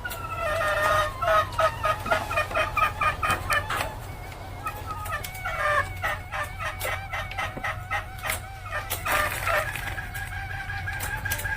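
Junglefowl hen cackling ('ngekek'): quick runs of short, repeated clucking notes, about four or five a second, in two bouts. A steady high tone comes in near the end.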